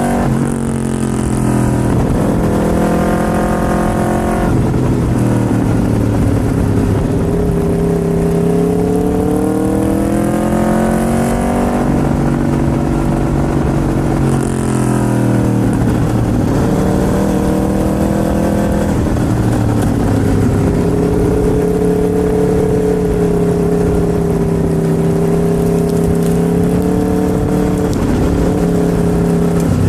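Aprilia RSV4's V4 engine under way on the move. The pitch drops sharply about four seconds in, then climbs steadily as it accelerates through a gear. It falls back off as the throttle eases, and settles into a steady cruise for the last ten seconds.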